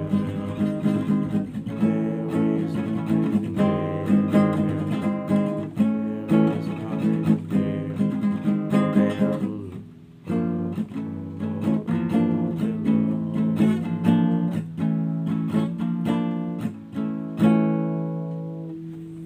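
Nylon-string classical guitar strummed in chords, with a brief break about halfway through. Near the end a final chord is left to ring and fade away.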